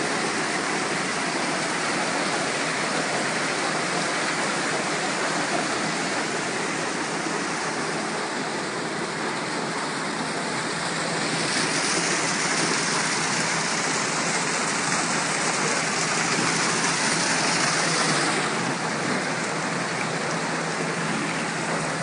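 Steady rush of muddy water and clay slurry flowing through the sluice troughs of an alluvial gold washing plant, growing brighter and hissier for a few seconds in the middle.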